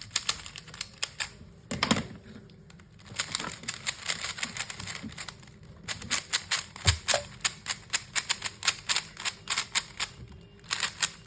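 Magnetic 3x3 speed cube being turned fast by hand: quick runs of sharp clicking layer turns, with a couple of short pauses and a soft thump about seven seconds in.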